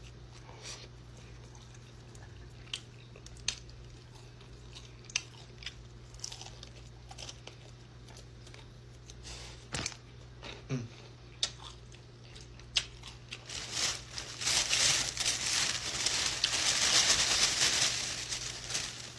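Close-up eating sounds of crispy Korean fried chicken: scattered bites and smacks, then a dense run of crunching chewing about fourteen seconds in that lasts some four seconds and is the loudest part.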